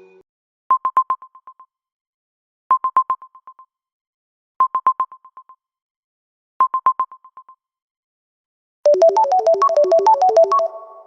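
iPhone ringtone: four short groups of rapid electronic beeps at a single pitch, about two seconds apart, each group fading out. Near the end a different ringtone begins, a fast bright synth melody that fades away.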